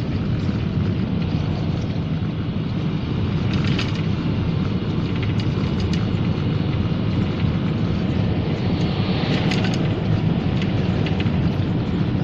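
Steady road and engine noise of a car driving uphill, heard inside the cabin, with a few brief clicks.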